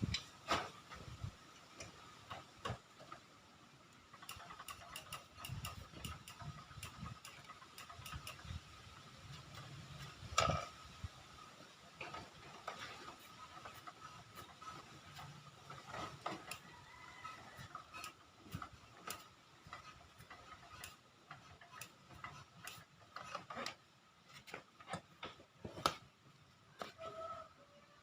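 Irregular metallic clicks, ticks and knocks of hand tools being worked on a motorcycle, over a faint steady high tone. No engine is running.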